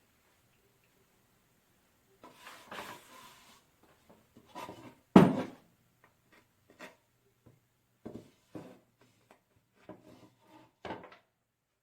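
Parts and tools being handled on a shop bench: a string of irregular knocks, clunks and scrapes, the loudest a sharp knock about five seconds in, over a faint steady hum.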